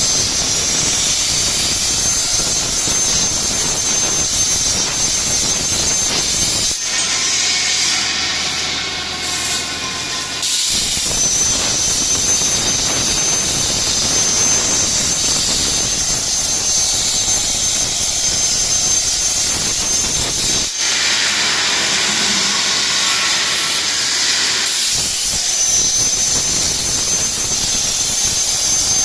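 CNC plasma torch cutting steel: a loud, steady hiss with a thin high whine. Twice the cutting sound breaks off for a few seconds and a lighter, thinner sound takes its place before the hiss resumes.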